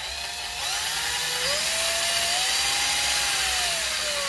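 Cheap 18 V cordless drill, opened up, running on its variable-speed trigger: the motor whine steps up in pitch about half a second in and again about a second and a half in, holds steady, then falls away near the end as the trigger is eased. The drill running again with working speed control shows that the replacement MOSFET in its speed controller has fixed it.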